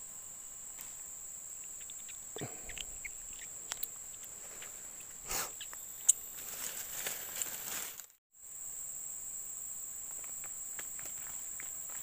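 Steady, high-pitched drone of insects. A few sharp clicks and some rustling come near the middle, and the sound cuts out completely for a moment about eight seconds in.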